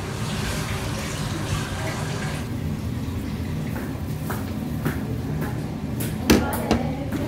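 Steady kitchen background hum with a few light clicks and taps as food is set into a ceramic rice bowl. The two loudest clicks come near the end.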